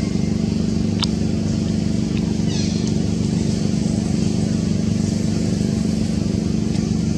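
A steady engine hum, with a sharp click about a second in and a brief high chirp about two and a half seconds in.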